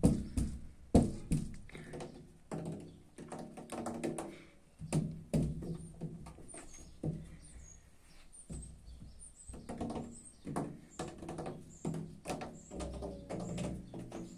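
A hand tapping and knocking on a window pane, in irregular thuds, some sharp and some dull. Faint bird chirps are heard in the middle of it.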